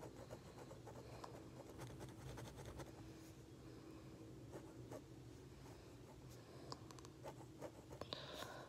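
Pen tip scratching on paper in short, quick drawing strokes, faint, with a louder run of rapid strokes near the end.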